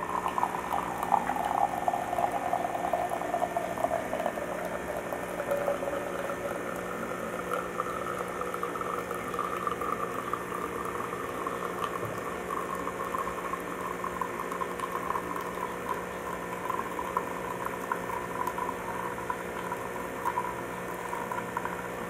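Krups Espresseria XP9000 automatic espresso machine brewing a long coffee: its pump hums steadily while coffee streams and gurgles into a glass mug.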